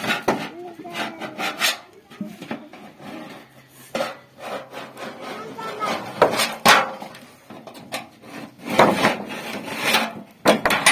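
Hand work on sheet metal salvaged from a refrigerator: irregular scraping and rubbing strokes, with louder strokes about six and nine seconds in.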